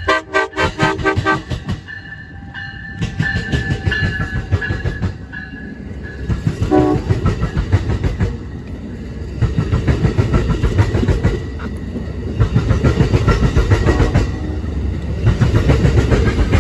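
Amtrak San Joaquin passenger train rolling past at speed: a steady rumble with wheels clicking rapidly over the rail joints, getting louder about ten seconds in. A last short blast of the locomotive horn sounds at the very start.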